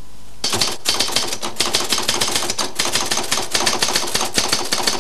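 Typing on a typewriter: a fast, even run of key strikes that starts about half a second in.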